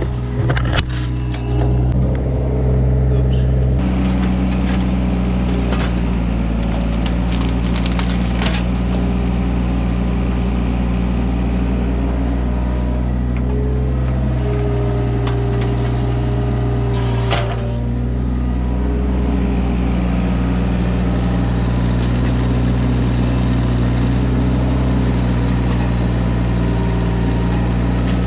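Hitachi mini excavator's diesel engine running steadily under working load as the bucket digs into roots and brush, with sharp knocks and snaps of breaking wood and roots, most of them in the first couple of seconds and a few more later.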